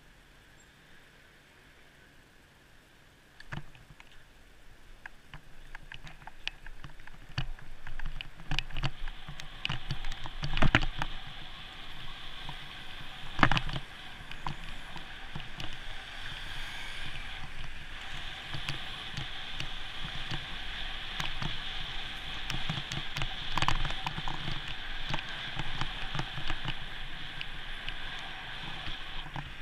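Bicycle ride noise on a city road picked up by a GoPro: after a faint few seconds, a knock about three and a half seconds in starts steady wind rush and rattling clicks and knocks from bumps in the road surface, with two sharp knocks standing out near the middle.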